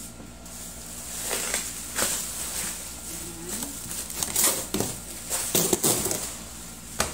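Bubble wrap crinkling and rustling as it is pulled off a cardboard gas-stove box, in several louder bursts.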